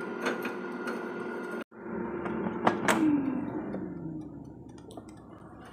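Air fryer fan motor running with a steady hum, which briefly cuts out about one and a half seconds in. Two clicks follow as the basket is pulled out, and the hum falls in pitch as the fan spins down.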